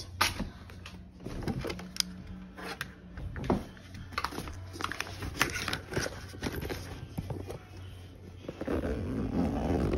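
Plastic VR headset and controllers being handled and packed into a fabric bag: irregular clicks and knocks with fabric rustling, denser near the end, over a low steady hum.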